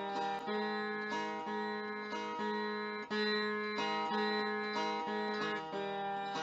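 Instrumental closing music: plucked string notes changing about every half second over a steady drone.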